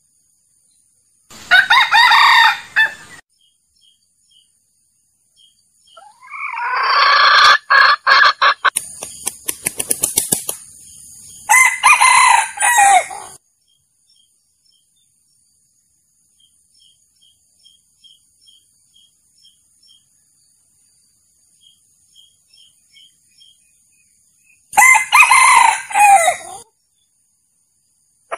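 Male junglefowl crowing repeatedly: a crow about a second in, a longer call running into a rapid string of sharp beats around the middle, another crow soon after, and a last crow near the end.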